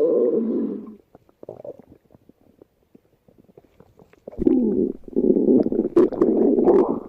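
A person's stomach growling. A loud rumble fades out about a second in and a short one follows. After a few quiet seconds with faint clicks, a long rumble starts with a sudden onset and runs on.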